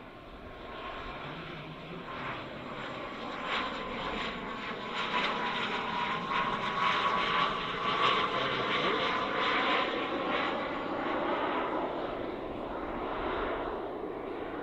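Four JetsMunt 166 model jet turbines on a large 1:13-scale RC Airbus A380 in a flypast: a steady turbine whine over a rushing noise. It swells as the model crosses overhead a little past halfway, then fades as it flies away.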